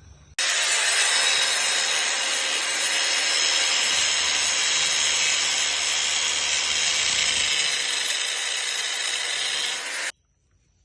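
Angle grinder cutting through a steel coil spring from a coilover, to shorten it and lower the car. It runs loud and steady for about ten seconds, starting and stopping abruptly.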